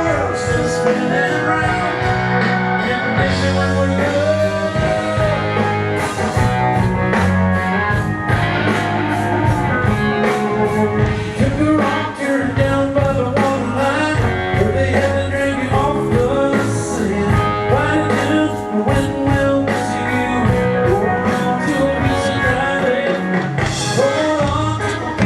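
A rock band playing live, blues-rock with electric guitar, bass, drums and singing, heard at a loud, steady level.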